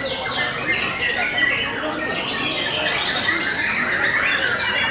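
Many white-rumped shamas (murai batu) singing at once: a dense, continuous tangle of overlapping whistled phrases that rise and fall in pitch.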